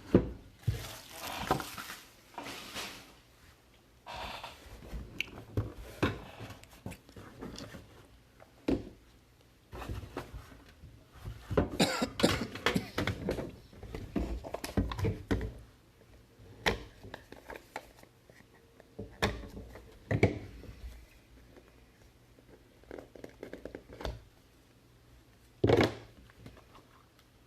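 Cardboard box and packaging being opened and trading cards handled on a table: scattered taps, thunks, slides and rustles, busiest near the start and from about ten to sixteen seconds in, with a sharp knock near the end.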